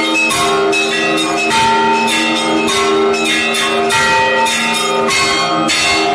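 Russian Orthodox church bells rung in a festive peal (zvon): quick repeated strikes on the smaller bells over the steady ringing of larger ones, many bell tones sounding together.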